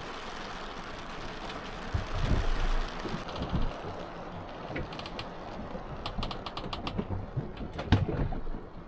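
Sailboat cabin under way at sea: a steady rush of wind and water outside the hull. A few knocks come about two seconds in, and from about three seconds in there is light, scattered clicking.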